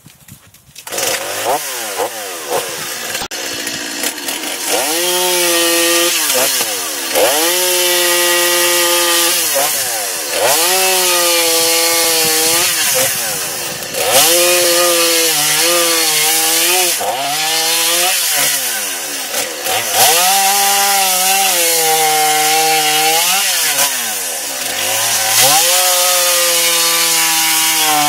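Stihl two-stroke chainsaw starting up about a second in, then revved repeatedly to high speed and held for several seconds at a time before dropping back to idle, as when cutting wood.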